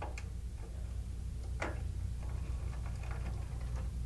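A few small, sharp clicks and ticks of wires and a resistor lead being handled and pushed into the screw terminal strip of an alarm control panel, the clearest about one and a half seconds in.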